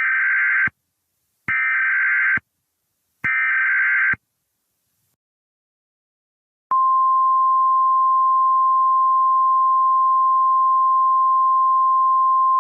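NOAA Weather Radio Emergency Alert System test signal: three short bursts of warbling digital SAME header data, about a second each, then after a pause of about two and a half seconds the steady single-pitched 1050 Hz warning alarm tone starts and holds. This is the coded header and alert tone that open a Required Monthly Test.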